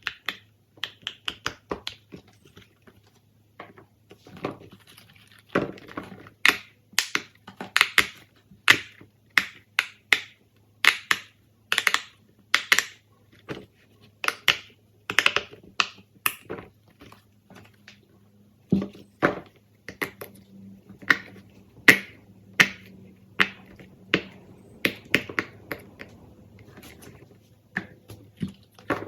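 Fidget toys being handled and pressed: a long irregular series of sharp pops and clicks, some in quick runs, over a faint steady low hum.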